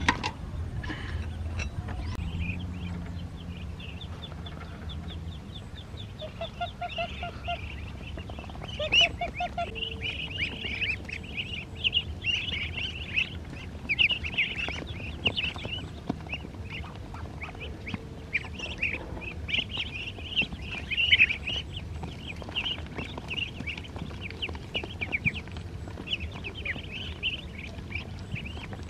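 A flock of ducklings peeping continuously in fast, high chirps as they crowd round a tray of food, with a few lower calls from adult ducks mixed in.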